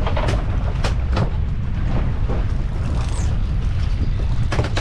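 Wind buffeting the microphone on a fishing boat: a steady low rumble broken by scattered sharp knocks and crackles.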